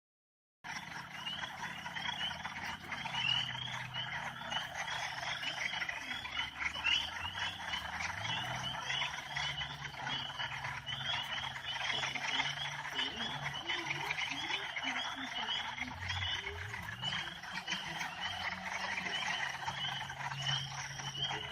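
A dense chorus of northern spring peepers: many short, rising peeps overlapping without a break, over a low steady hum.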